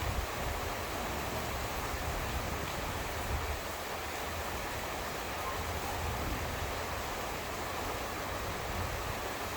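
Steady rain falling, an even hiss, with a low rumble underneath that eases after about four seconds.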